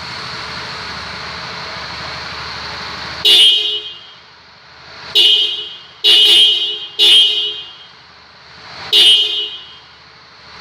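Denso electric horn on a Honda CB150R motorcycle, wired through a relay so that it sounds louder, giving five short honks at about three, five, six, seven and nine seconds in. Before the first honk there is a steady rushing noise.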